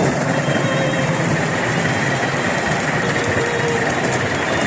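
Kingscale live-steam miniature model of the BR Standard 4 tank locomotive 80080 running along the track with the riding trolley behind it. The moving train makes a steady, even running noise throughout.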